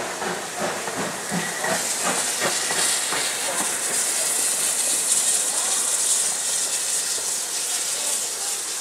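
BR Standard Class 7 'Britannia' 4-6-2 steam locomotive No. 70000 working under steam as it pulls away. Its exhaust beats are heard for the first few seconds, then a loud steady hiss of escaping steam takes over.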